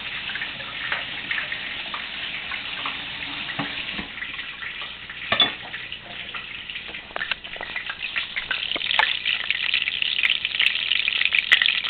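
Fish cake frying in shallow oil in a pan, the oil sizzling and crackling steadily and getting louder in the last few seconds. A single knock about five seconds in.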